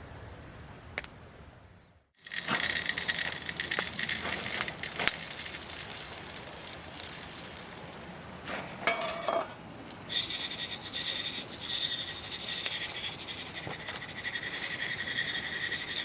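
Rattling and clinking of small hard objects with some scraping, after a brief drop to near silence about two seconds in.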